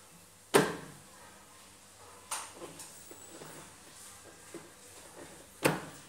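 Two loud, sharp knocks about five seconds apart, with a fainter knock between them and light tapping.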